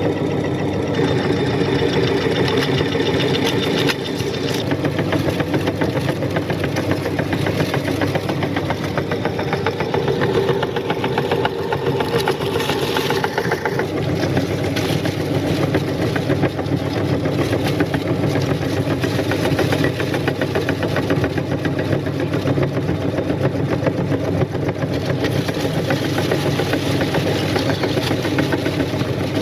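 Electric meat grinder running steadily under load, its motor and gearing churning as it crushes crisp snack chips. Its level dips slightly about four seconds in.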